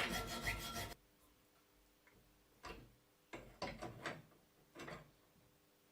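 Hand metal saw cutting an iron bar: a stretch of sawing in the first second, then a few short, faint rasping strokes at uneven spacing.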